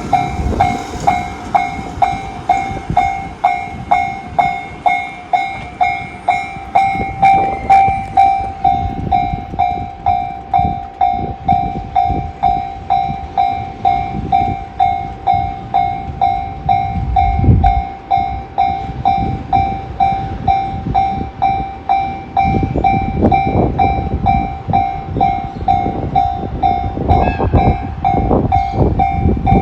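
A Japanese level-crossing alarm (JR standard warning tone) ringing steadily, about twice a second. Under it a freight train hauled by an EF210 electric locomotive rumbles over the crossing, its wheels clacking on the rails, growing louder about two-thirds of the way in.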